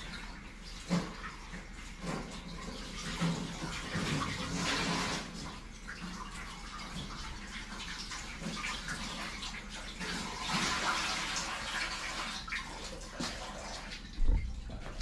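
Water sloshing and splashing in a cooking pot in two longer swells, with a few light knocks and a sharp knock near the end.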